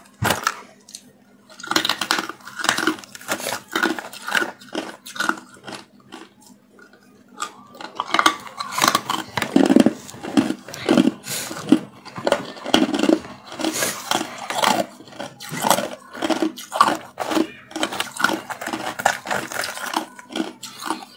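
Hard ice being bitten and chewed, with many sharp, irregular crunches. The crunches come in scattered spells at first, then fast and close together from about eight seconds in. A faint steady hum runs underneath.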